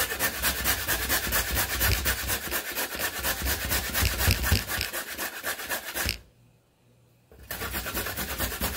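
Raw carrot being grated on the coarse holes of a stainless steel box grater: rapid, even rasping strokes, with a pause of about a second about two-thirds of the way through before the strokes resume.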